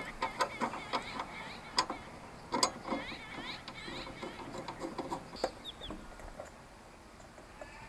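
Scattered clicks, light knocks and rattles of metal handle brackets and clips being fitted onto a plastic push seed planter (token yantra), dying away after about five seconds. A few short bird chirps sound in the background.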